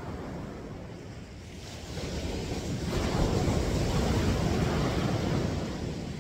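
Ocean surf: a wave breaks and washes up the beach, swelling about two seconds in, loudest through the middle and easing off near the end, with wind rumbling on the microphone.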